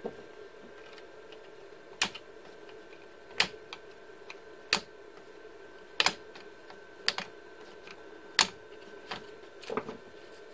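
Lid bars of a plastic cable drag chain being snapped by hand: a series of sharp plastic clicks at irregular intervals, roughly one a second, with a steady faint hum underneath.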